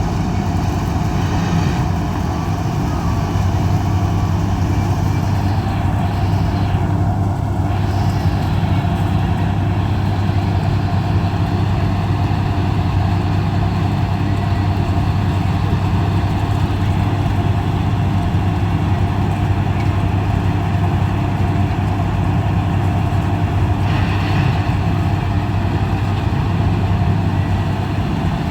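Combine harvester running steadily, its engine a deep, unchanging hum with no breaks.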